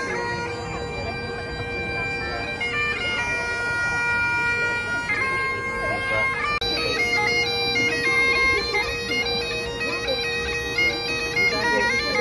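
Great Highland bagpipe playing a tune: a steady drone under the chanter's melody, held notes at first, then quicker changes of note from about halfway through.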